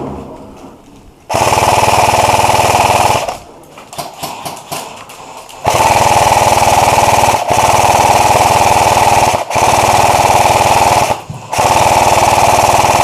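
G&P Stoner 63 airsoft electric light machine gun firing long full-auto bursts, a rapid mechanical rattle of the gearbox cycling. There is one burst of about two seconds, a few scattered pops, then near-continuous fire for about seven seconds broken by three brief pauses.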